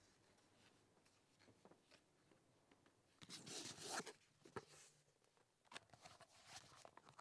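Quiet rustles of books being handled on a wooden bookshelf, with a louder scraping slide about three seconds in as a book is drawn out, then a few light knocks.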